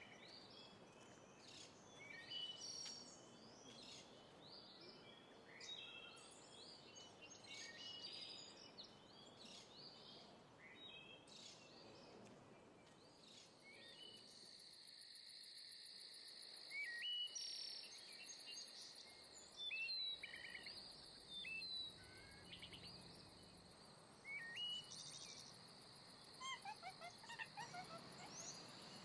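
Faint outdoor nature sounds: small birds chirping and calling, with an insect's steady high trill joining about halfway through. Near the end a bird sings a quick run of notes that falls steadily in pitch.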